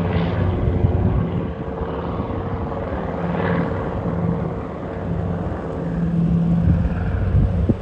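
PBY Catalina's twin Pratt & Whitney R-1830 radial engines and propellers droning steadily as the flying boat flies past low and climbs away, with a low rumble under the engine note.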